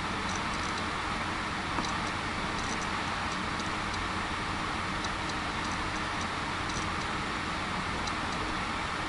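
Short runs of light clicks from a computer mouse's scroll wheel, a cluster every second or two, over a steady background hiss.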